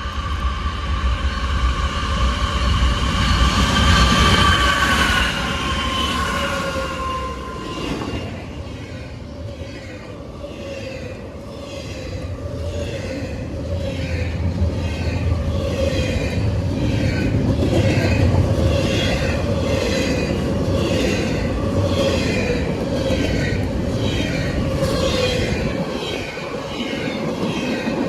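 Norfolk Southern freight train passing: the locomotive's air horn sounds a chord for about seven seconds, dropping slightly in pitch as it goes by. After that the train's cars roll past with a steady rumble and a regular clatter, about one beat a second.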